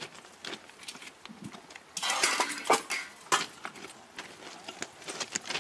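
Footsteps crunching on track ballast and light clinks of metal tools, with a louder rough crunching and scraping stretch about two seconds in that lasts about a second and a half.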